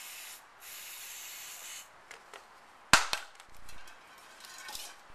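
Right Guard aerosol can spraying into a potato gun's gas chamber in two hisses, a short one ending just after the start and a longer one of about a second. About three seconds in comes a single sharp knock, then lighter clicks and rubbing as the gun is handled.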